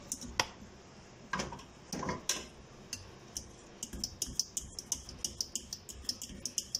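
Wire whisk clicking and scraping against the sides and bottom of a stainless steel pot as thickening custard is stirred continuously to keep lumps from forming. The clicks are scattered at first, then come quickly, several a second, from about four seconds in.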